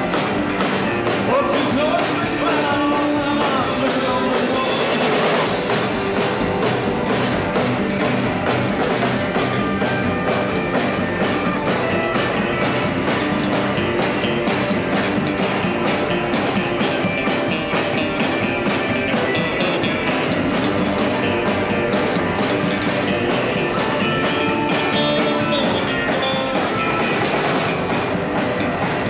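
A live rock band playing: electric bass, electric guitar and drums, loud and continuous over a steady beat.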